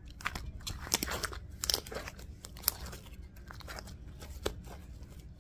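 Sticky slime being stretched and squished by hand, making irregular crackling, popping clicks. The clicks are busiest in the first three seconds, with a few sharper pops after that.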